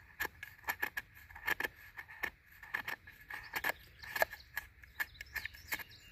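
Knife blade shaving thin feather curls off a fire-starter stick: a quick, irregular run of short scraping cuts, a few each second.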